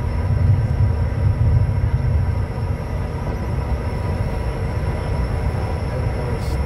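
Cockpit noise of a Bombardier Challenger business jet rolling off the runway after landing: a low rumble of the wheels and airframe under a steady engine whine. The rumble eases a little a couple of seconds in as the jet slows.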